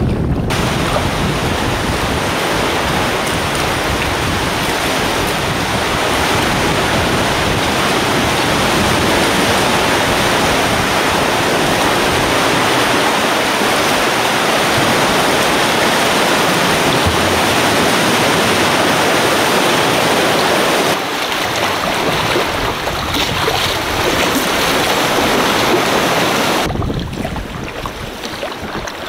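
Loud, steady rushing of seawater, changing in character about two-thirds of the way through and falling off near the end.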